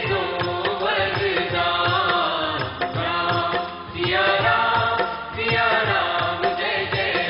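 Hindu devotional bhajan music: a melody over a steady drum beat.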